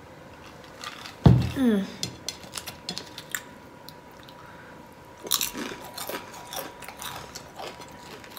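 A glass with ice is set down on the table with a thump about a second in, followed by a short falling "ahh" after the drink. Then come wet chewing and the small clicks and smacks of shrimp being picked at and eaten with the fingers.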